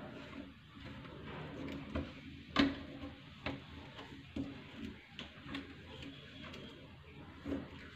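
Irregular light clicks and knocks from plastic sink drain fittings being handled and pushed together, the loudest about two and a half seconds in.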